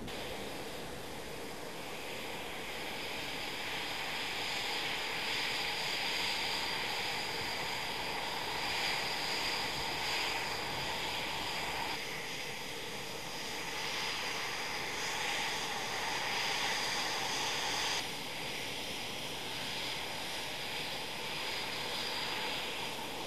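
Eurofighter Typhoon jets' twin EJ200 turbofan engines running: steady jet engine noise with a high turbine whine on top. The sound changes abruptly twice, about halfway through and again a few seconds later.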